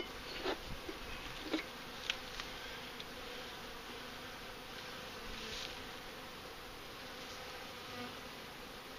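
Honeybees buzzing steadily around a hive, with a few light clicks and knocks in the first couple of seconds.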